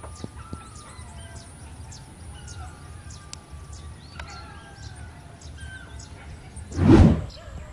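Many small birds chirping and calling with short rising and falling whistles over a steady low rumble, and a loud, brief whoosh about seven seconds in.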